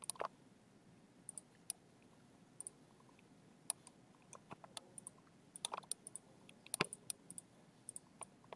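Faint computer mouse clicks, irregular and scattered, some in quick pairs, the loudest a little before the end.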